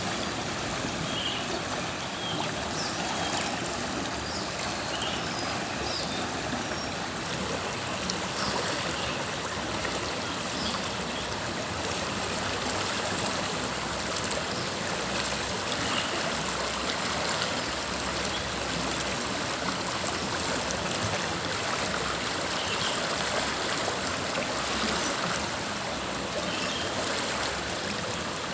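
River water flowing, a steady rush of water.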